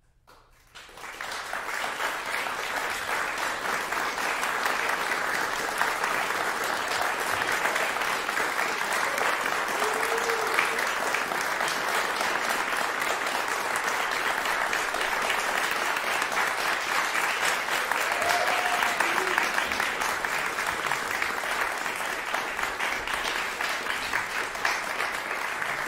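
Audience applauding steadily, starting suddenly about a second in after a silence.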